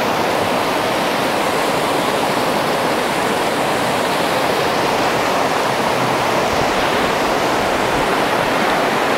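The McKenzie River's whitewater rapids rushing close at hand, a steady, even noise of fast-moving water over rocks.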